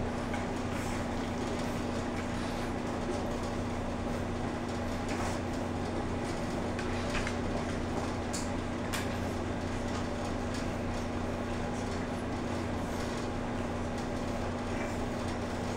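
Steady mechanical hum with a low, even tone that never changes, with a few faint short clicks about halfway through.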